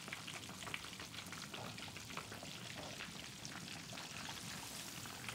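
Flour-dredged fish fillets deep-frying in hot oil in a pot: a quiet, steady sizzle with many small crackling pops.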